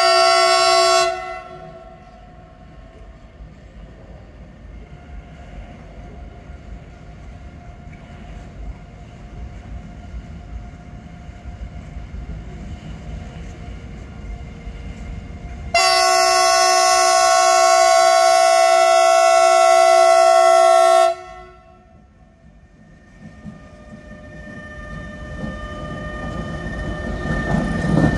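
Electric freight locomotive's horn sounding: a blast that cuts off about a second in, then a long blast of about five seconds midway. Under it, the low rumble of the approaching freight train grows, turning loud near the end as the locomotive and wagons pass close by.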